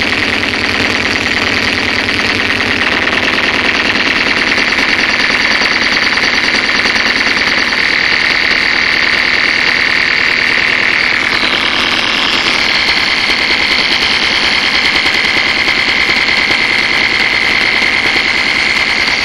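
A loud, harsh, rapidly pulsing electronic buzz effect played through DJ speaker stacks, its upper pitch shifting about eleven to twelve seconds in.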